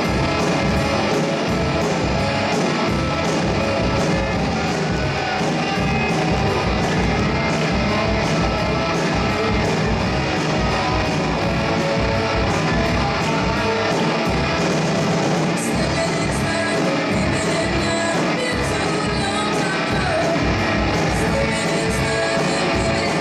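Live rock band playing steadily and loud: distorted electric guitars, electric bass and a drum kit.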